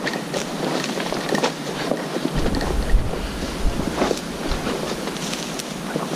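Crackling and rustling of dry, dead bracken fronds as something moves through them, in many small irregular snaps. About two seconds in, wind buffets the microphone with a low rumble for a couple of seconds.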